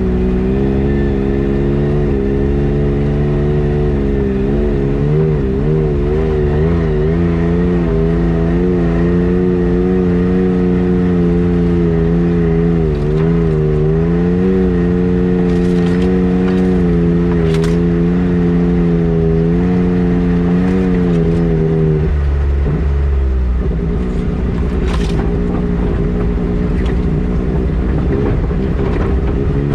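A vehicle engine running while under way, its pitch wavering up and down and dropping about 22 seconds in, over a steady low rumble.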